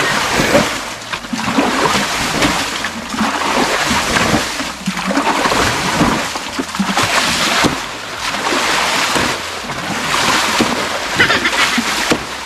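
Water splashing over and over in a shallow stream, in surges about once a second or so: water being scooped and thrown out to drain the stream bed.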